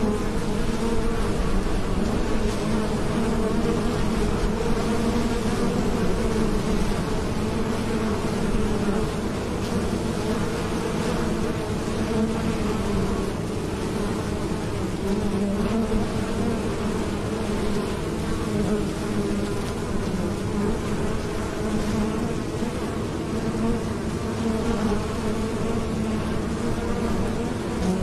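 Many honeybees buzzing as they fly in and out at a beehive entrance: a steady, continuous hum.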